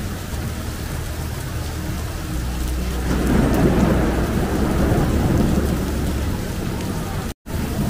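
Heavy rain falling steadily, with a low roll of thunder that swells about three seconds in and fades again. The sound cuts out for a moment near the end.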